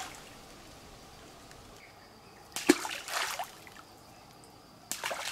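Groundbait thrown by hand into a small stream, landing with a sharp plop and a short splash twice: once about two and a half seconds in and once near the end.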